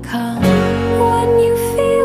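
Background music: a slow song with held notes over a plucked-string accompaniment.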